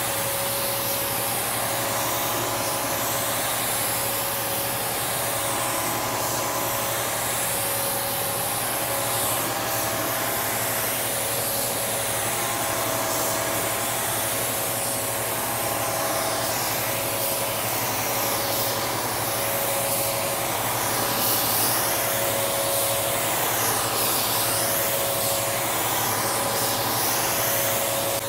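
A gravity-feed HVLP spray gun hissing steadily as it sprays paint onto a car's side panels, its hiss swelling and fading about every two seconds as the gun sweeps back and forth. Under it runs the steady hum of the inflatable paint booth's blower fans.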